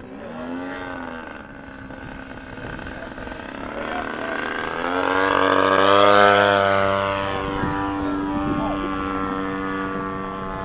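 Large radio-controlled model airplane's engine and propeller in flight, its pitch wavering up and down near the start, then growing louder as the plane makes a low pass, peaking about six seconds in and dropping in pitch as it goes by and flies off.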